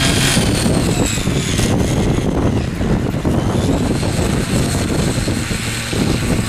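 Small gasoline engine of a mini power tiller running steadily.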